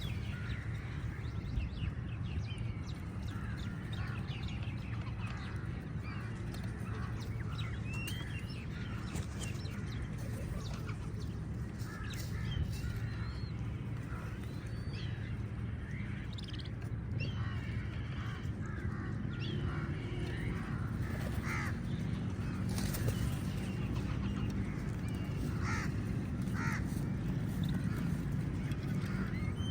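Many crows cawing, short calls overlapping from several birds, over a steady low hum.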